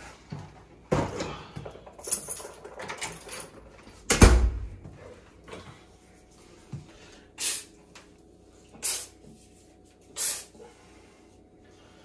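Knocks and clicks of an entry door shutting and a case of cans being set down, the loudest a heavy thud about four seconds in. Then a small spray bottle spritzing onto hands three times, short hisses about a second and a half apart.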